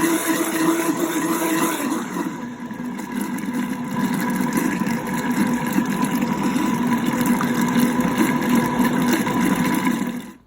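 Countertop blender motor running at high speed, pureeing pineapple, ginger and coconut water. Its hum drops in pitch about two seconds in, and it cuts off abruptly near the end.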